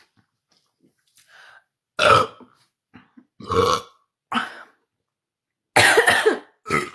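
A young woman burping repeatedly, a series of about five loud burps about a second apart, the longest near the end. They are gas brought up by drinking cola, and the burps are bringing up foam.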